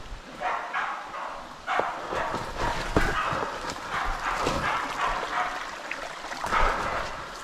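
Pig-hunting dogs barking over and over, roughly once a second, as bay dogs do while holding a pig at bay, with sharp clacks of footsteps on creek-bed stones.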